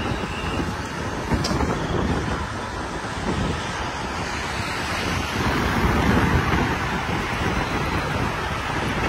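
Wind rushing over the microphone of a moving road bicycle, mixed with road and traffic noise from passing cars.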